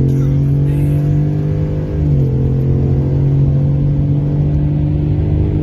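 Pickup truck engine at full throttle in a drag-race launch, heard from inside the cab. The engine pitch climbs, drops at an automatic upshift about two seconds in, then climbs again.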